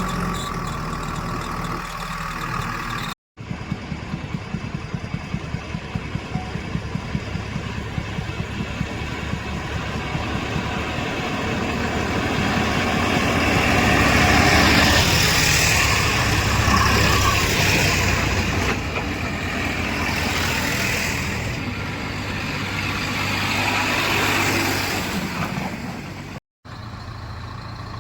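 Heavy diesel machine engine running under load. It grows louder and more strained toward the middle, then eases off. The sound cuts out abruptly twice, briefly.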